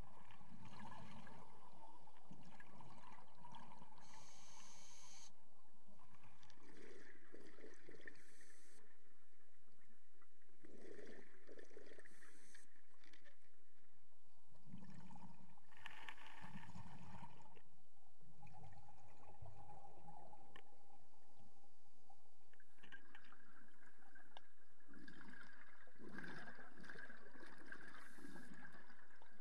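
Underwater sounds of water moving and gurgling around the camera, with short bursts of hiss every few seconds.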